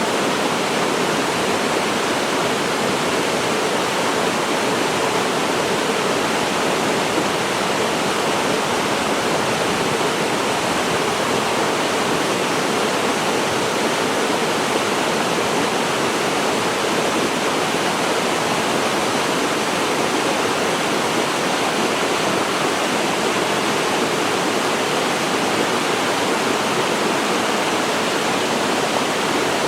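Waterfall pouring into a mountain-stream pool: a loud, steady, unbroken rush of falling water.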